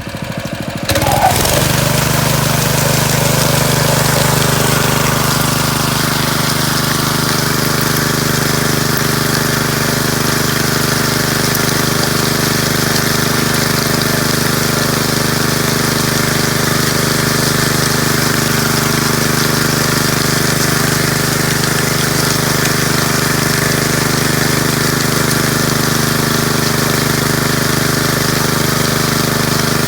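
Engine running steadily at constant speed, coming in sharply about a second in.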